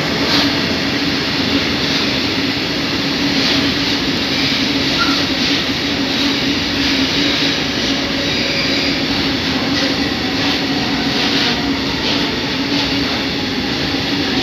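Freight train of high-sided hopper wagons rolling past at speed: a loud, steady rumble and rush of wheels on rail, with repeated clacks and a steady low hum underneath.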